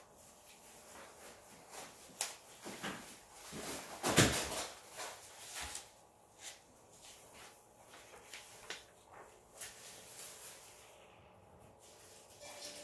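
Pen scratching across paper in short, irregular strokes as a drawing is inked, with one louder noise about four seconds in.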